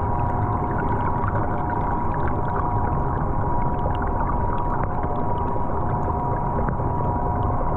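Underwater ambience of a swimming pool picked up by a submerged camera: a steady low rumble with a constant high hum, and scattered small ticks and clicks.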